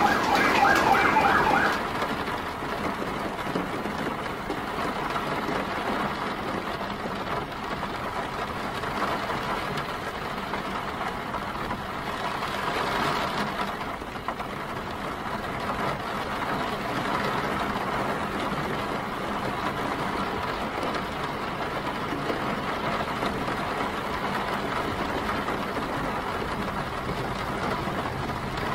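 Emergency vehicle siren sounding through steady city street noise of traffic and rain.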